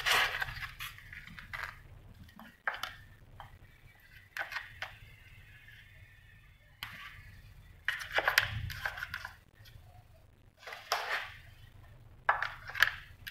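Dry lasagne sheets being handled and laid into a glass baking dish: a series of short rustles and light taps, a few seconds apart.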